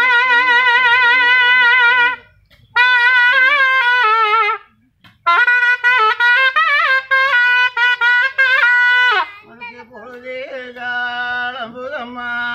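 Nadaswaram playing a loud, wavering, ornamented melody over a steady drone, in phrases with short breaks about two and five seconds in. From about nine seconds in it drops to a quieter, lower drone with softer notes.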